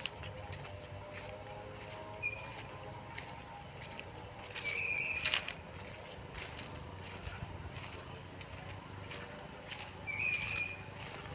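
Forest ambience: a steady high insect drone. A bird gives a short, flat whistled call three times: a brief one about two seconds in, a longer one around five seconds in, and another near the end. There are occasional light clicks and crackles.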